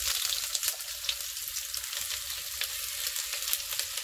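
Sliced onions sizzling in hot oil in a cast-iron Dutch oven: a steady frying hiss with many small crackles.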